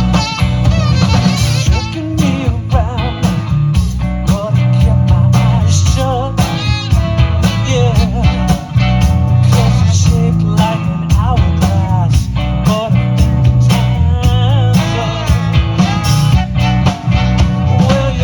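Live band music: a steady drum beat under a heavy bass, with a wavering melody line on top.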